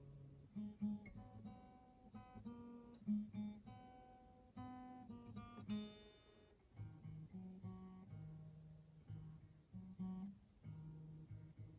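Acoustic guitar played solo at a gentle level: single picked notes and chords, a phrase being tried out, with one fuller, brighter strummed chord about six seconds in.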